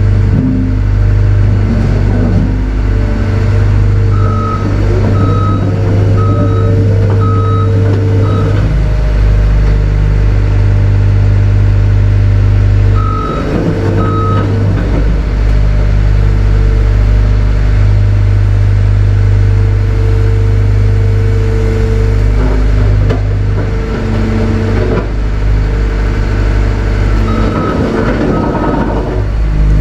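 Heavy truck's diesel engine running steadily with a deep low hum. Over it, a backup-alarm beeps in short high pips: a run of about five between roughly four and eight seconds in, two more around thirteen seconds, and a few near the end.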